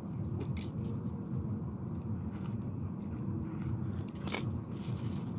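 People eating by hand: chewing and crunching, with a few sharp clicks and knocks of bowls being handled, the clearest about four seconds in, over a steady low rumble.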